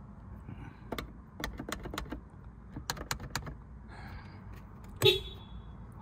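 Several runs of clicks from switches and buttons being pressed, then a short blast of the Honda Civic's horn about five seconds in, the loudest sound. The horn still sounds while the kill switch module has cut off the car's other electronics.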